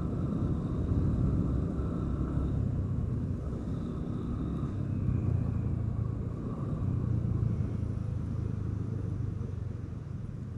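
Steady low engine rumble with tyre and wind noise from a vehicle cruising along a road.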